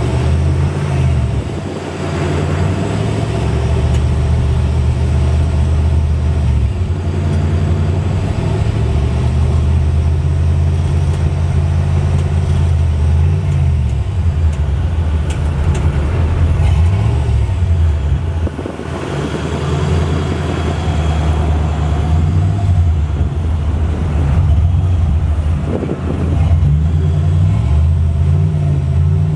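1950 Chevy pickup's engine idling and being revved up and down several times. The engine drives the air-suspension compressor, which refills the air-ride tank quickly with a little RPM.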